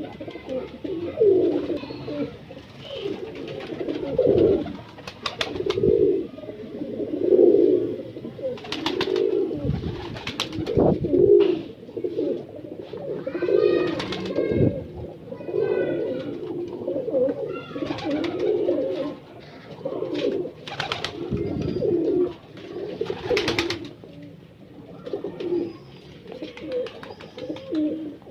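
Breeder pigeons cooing over and over, one low coo after another, with a few sharp clicks and some higher, stacked calls around the middle.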